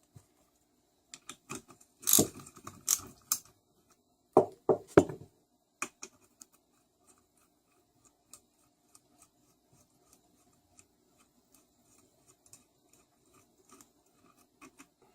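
Hand tools and small metal engine parts clinking and knocking during a small-engine teardown. Two clusters of louder knocks come about two and four and a half seconds in, then only light, scattered ticks.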